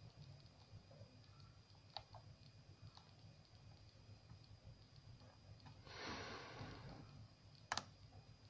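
Quiet lock picking in a euro profile pin-tumbler cylinder: faint metallic clicks of the pick and tension tool working the lock, a light tick about two seconds in and a sharper click near the end. A soft breath sounds about six seconds in.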